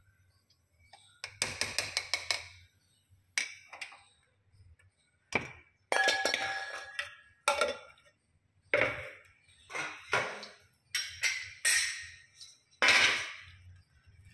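Steel spoon and utensils clinking and knocking against steel kitchen vessels, about a dozen sharp strikes, some in quick runs, each ringing briefly.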